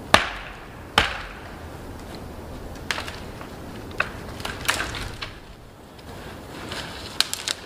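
Wood being chopped with an axe: two sharp chops near the start, then lighter cracks and knocks of wood scattered through the rest, with a quick cluster of three near the end.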